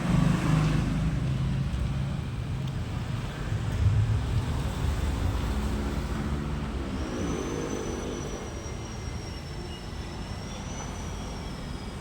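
A motor running, its low hum shifting in pitch, with a thin high whine joining about seven seconds in.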